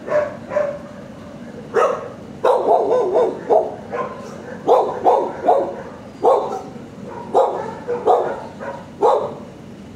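Dogs barking in a shelter kennel: a long series of loud barks, several in quick runs, with short gaps between.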